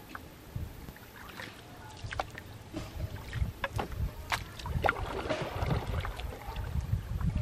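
Canoe being paddled: scattered splashes and drips of water off the paddle with occasional light knocks, over a low, uneven wind rumble on the microphone.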